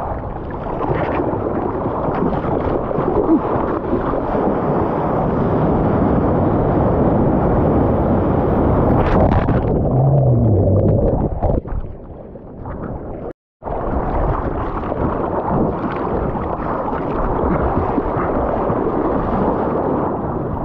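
Sea water sloshing and splashing against a waterproof action camera held at the surface, a heavy low wash on its microphone. About ten seconds in the camera goes under and the sound turns muffled and dull for a few seconds. It cuts out briefly, then the surface sloshing resumes.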